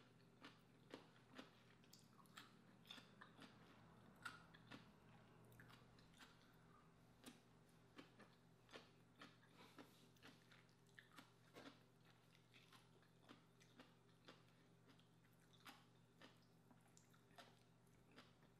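Faint, close-miked chewing of lobster meat: a string of short mouth clicks and smacks, about one or two a second, over a faint steady hum.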